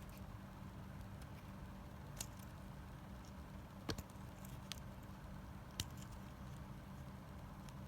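A few sharp clicks and light taps of small plastic toy parts and packaging being handled, the loudest about four seconds in, over a steady low hum.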